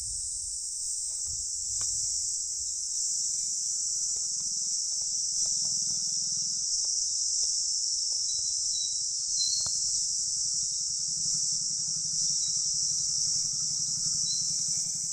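Continuous shrill chorus of insects, a steady high-pitched hum with no break, over a faint low rumble.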